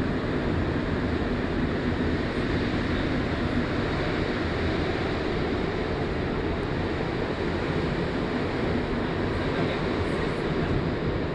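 Steady running noise of a rubber-tyred MR-73 Montreal Metro car, heard from inside the car.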